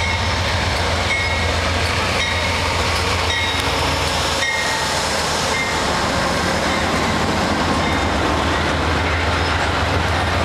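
Amtrak diesel-hauled passenger train rolling past close by: first the locomotive, then a string of passenger cars. It makes a steady, loud rumble with a faint clatter of wheels over the rail joints.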